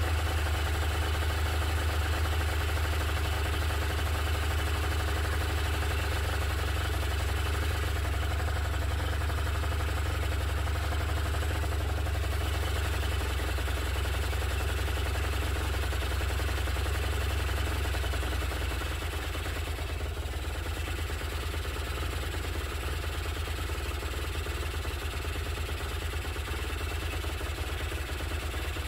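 Honda NS250F's two-stroke V-twin engine idling steadily, on its first run in a long while. About two-thirds of the way in, the note settles slightly lower and quieter.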